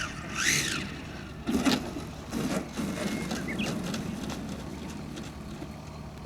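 Radio-controlled F3A pattern aerobatic plane in flight, its motor whine rising and falling in pitch. A loud thump comes about a second and a half in, followed by steady rumbling noise.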